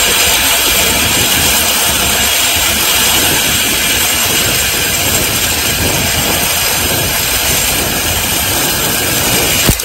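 Zip-line trolley running fast along a steel cable: a loud, steady rushing whir of pulleys on the cable and moving air that eases slightly toward the end. A single sharp knock comes near the end as the trolley reaches the landing platform.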